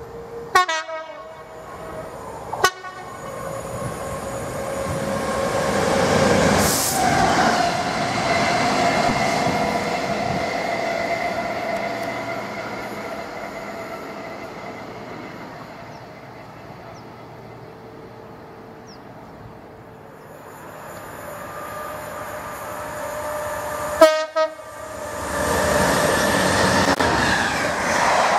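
Freight trains passing at speed: a train's rumble swells and fades around seven seconds in, and near the end a Class 66 diesel locomotive hauling container wagons rushes past close by. Short, sharp train horn blasts sound twice near the start and again just before the final pass.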